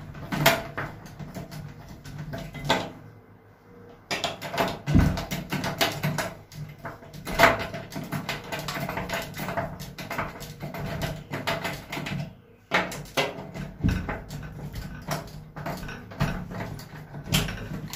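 Screwdriver driving the mounting screws into the metal plate of a round-knob door lockset, making irregular clicks and scrapes of metal on metal, with brief pauses about three seconds in and again past the middle.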